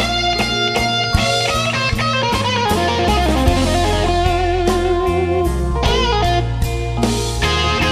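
Electric guitar playing a slow blues solo over bass and drums. It holds one long note for the first couple of seconds, then plays bent notes with a wide, wavering vibrato.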